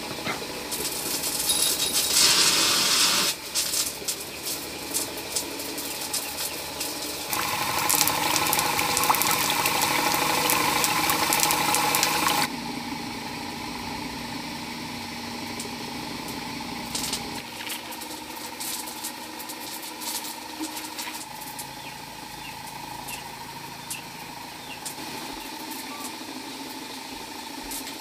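An engine running at a steady speed, joined by two louder stretches of hissing noise with clicks: a short one about a second in and a longer one of about five seconds a few seconds later.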